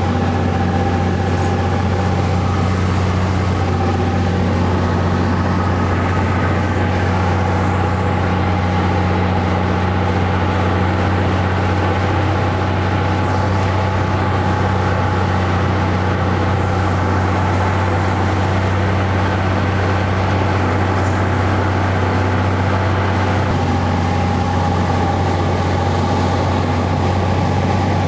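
Piston engine and propeller of a single-engine high-wing light aircraft droning steadily in cruise flight, heard inside the cabin. The note shifts slightly near the end.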